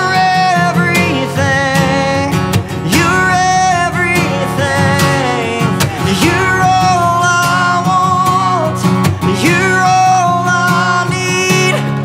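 Slow worship song: a singer's drawn-out melody, sliding between held notes, over a sustained instrumental accompaniment.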